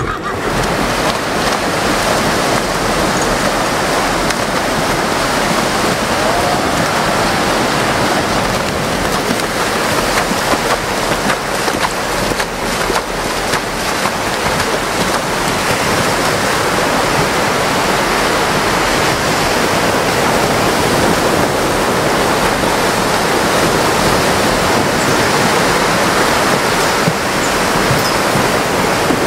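North Sea surf washing steadily onto a sandy beach, a continuous rush of breaking waves.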